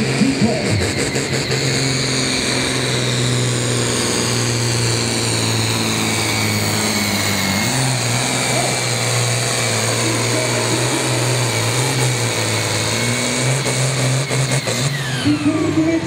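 Diesel engine of a Ford 9600 pulling tractor running flat out under load as it drags the weight sled down the track: a steady, loud drone with a high whistle over it that slowly falls. The engine's tone dips slightly about halfway through.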